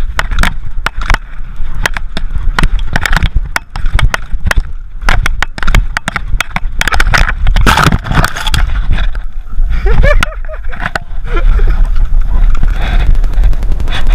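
Downhill mountain bike rattling over a rocky trail, heard on a rider-mounted GoPro: a steady rush of wind on the microphone with rapid clacks and knocks from the tyres and frame hitting rock. About eight seconds in, a dense burst of loud knocking as the bike goes into the trees, then a brief voice.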